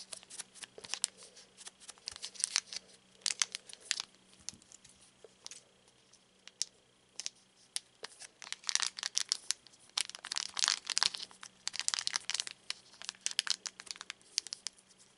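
Foil trading-card booster pack wrapper crinkling and crackling in irregular bursts as it is handled and opened, thinning out for a couple of seconds midway before picking up again.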